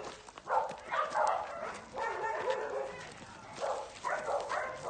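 A young dog making short, repeated yips and whines, with steps on gravel.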